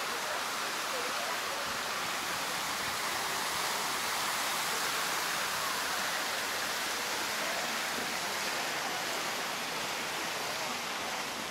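Large public fountain's jets splashing and pouring into its stone basin, a steady rushing hiss of falling water.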